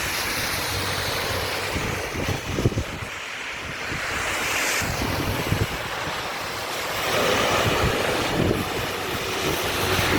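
Rain falling as a steady hiss, with gusts of wind buffeting the microphone in irregular low rumbles.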